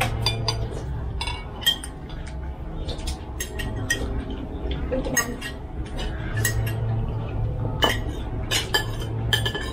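Cutlery clinking against dishes at a meal: irregular light clinks and taps, several a second at times, with a few louder knocks.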